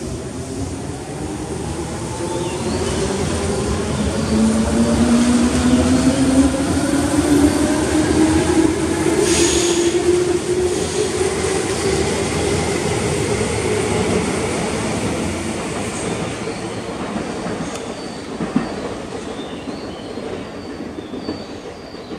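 Tobu 10050-series electric train pulling out: its motor whine rises steadily in pitch as it accelerates past, with wheel noise on the rails, growing loudest midway and then fading as it pulls away.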